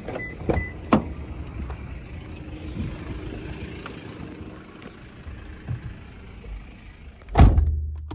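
A Lexus sedan's driver door: two sharp clicks from the handle and latch as it is pulled open within the first second, then, about seven seconds later, the door is shut with one loud thud, the loudest sound, after which the outside noise drops away.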